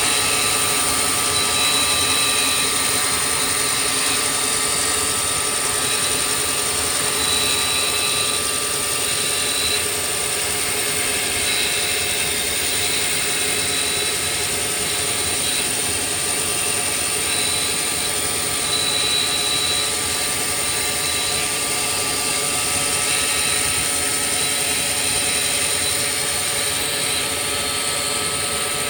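CNC milling machine running: a steady high-pitched whine over a constant hiss, with a higher tone that comes and goes every second or two.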